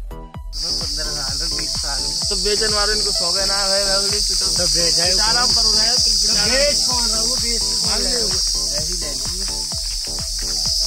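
Crickets chirring in a steady, high-pitched chorus, with a song playing underneath in which a voice's notes waver and glide.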